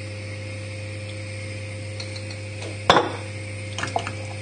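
A single sharp knock of a kitchen utensil against a saucepan about three seconds in, then a few lighter knocks near the end as a wooden spoon starts stirring sauce in the pan, over a steady low hum.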